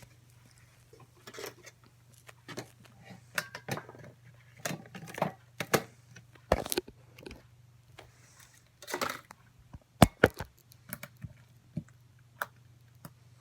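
Slime being squished and poked by hand, making irregular clicks and pops, some sharper and louder about ten seconds in. A steady low hum sits underneath.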